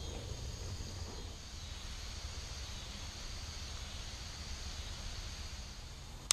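Steady hiss and patter of a light rain shower falling on a pond and the leaves around it, over a low rumble. A single sharp click right at the end.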